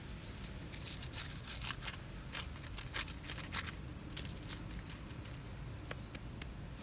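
A rapid, irregular run of sharp clicks and crackles, dense for the first few seconds and thinning out after, over a low steady rumble.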